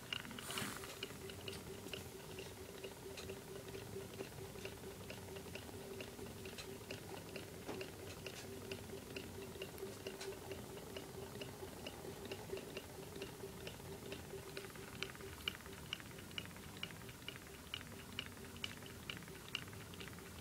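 Astromedia cardboard low-temperature-difference Stirling engine running at about 120 rpm, knocking in an even rhythm of about two light ticks a second. Faint bubbling and sputtering of steam come from the hot-water heater beneath, a sign that the water under the engine is boiling, and a steady hum runs underneath.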